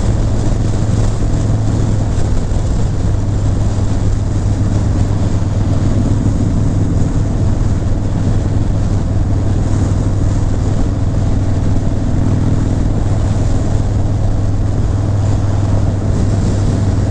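Harley-Davidson Breakout's V-twin engine running steadily at highway cruising speed, with wind and road rush over it.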